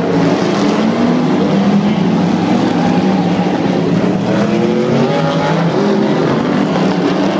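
Several figure-eight race cars' engines running together at racing speed, loud and steady, with overlapping pitches rising and falling as the cars accelerate and lift off.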